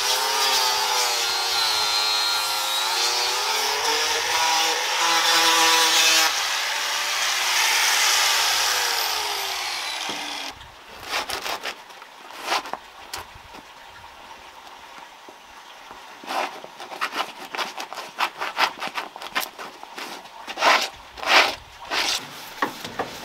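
A corded handheld power tool runs against the wooden railing, its motor pitch wavering under load, then winds down over about two seconds and stops. Then a sanding block is rubbed over wooden deck boards by hand in short, uneven scratching strokes, louder near the end.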